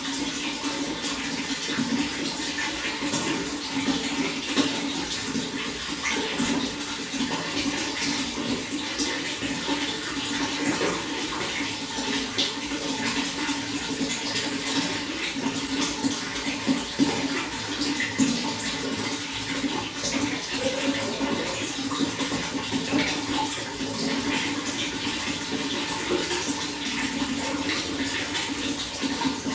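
Running water flowing and splashing steadily, a constant busy trickle and gurgle.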